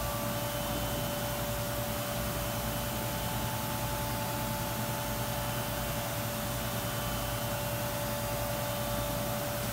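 Robotic router cell running: a steady whine from the robot-held router spindle over an even hiss and low machine hum.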